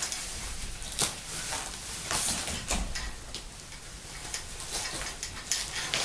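An eagle on a gloved fist flapping and shuffling its wings: irregular feather rustles and wingbeats with scattered sharp clicks.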